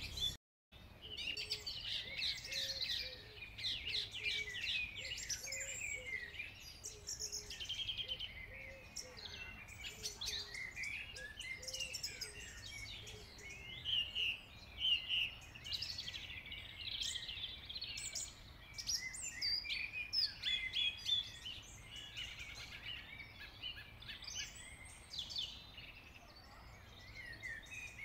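Birds singing, many chirping calls overlapping, with a lower note repeated about once a second through the first half.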